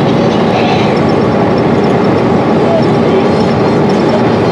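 A 2012 Gillig BRT bus's Cummins ISL 280 inline-six diesel engine and its Allison B400R automatic transmission running steadily under way, mixed with steady road and tyre noise, heard from inside the passenger cabin.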